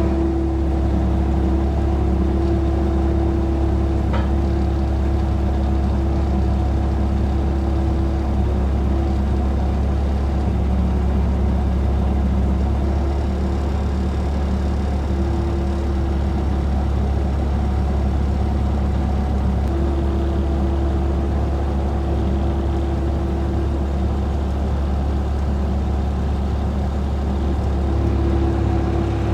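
Bobcat skid-steer loader's engine running steadily, with a higher whine that fades out and comes back several times.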